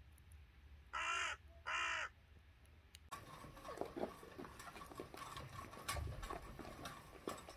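A crow calls twice, two loud caws close together. From about three seconds in, faint scraping and knocking as a bucket is drawn up a well by rope.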